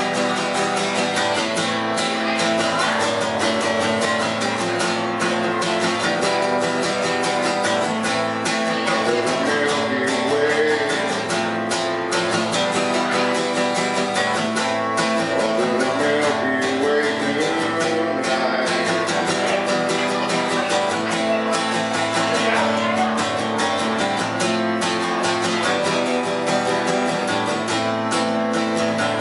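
Acoustic guitar strummed in a steady run of chords.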